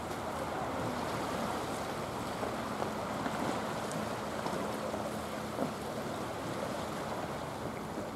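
Small waves washing steadily against a rocky sea shore.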